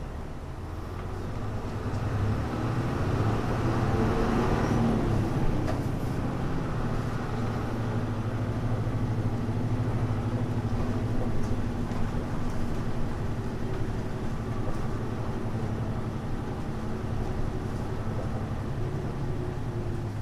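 Hino Blue Ribbon U-HU2MLAA diesel bus heard from inside, its engine note rising as it accelerates over the first five seconds or so, then holding a steady, muffled drone while it cruises.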